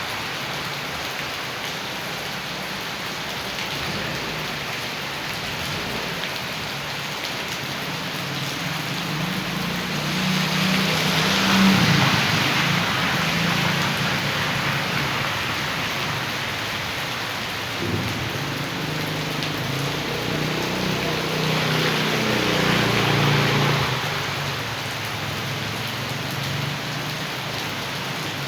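Heavy rain and rushing rainwater runoff as a steady noisy wash, swelling louder twice with a low rumble, about a third of the way in and again past two-thirds.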